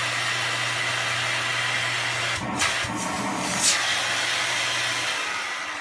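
Bagged Kenmore Magic Blue DX vacuum running at full suction, its airflow briefly disturbed with a few sharp changes in the middle as the intake is pulled against; the motor then winds down near the end.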